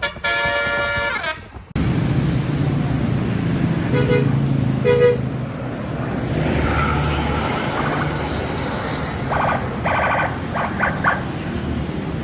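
Tour bus basuri 'telolet' musical air horns: a multi-note horn phrase that cuts off suddenly under two seconds in. A bus engine then runs steadily under two short toots about 4 and 5 seconds in, and a quick string of several short multi-tone horn blasts comes near the end.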